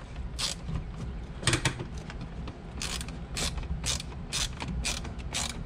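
Screwdriver ratcheting in short clicking strokes, scattered at first and then about two a second, as small T10 Torx screws are turned in to finger tight.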